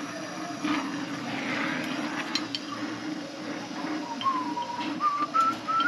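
Oxy-fuel brazing torch flame burning with a steady rushing hiss while copper refrigerant lines are brazed to a compressor. From about four seconds in, a thin whistle rises in pitch in small steps.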